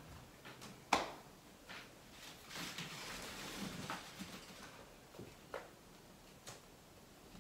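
Quiet room with a few small clicks and handling noises, the loudest a sharp click about a second in.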